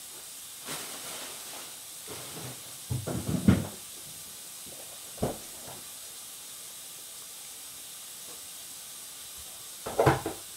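Steady hiss with a few scattered short bumps and rustles, the loudest about three and a half seconds in and another near the end.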